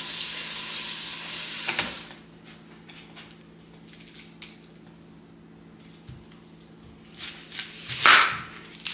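Onions being handled for slicing: a steady hiss for about the first two seconds, then a few light clicks, then loud crackling and rustling near the end.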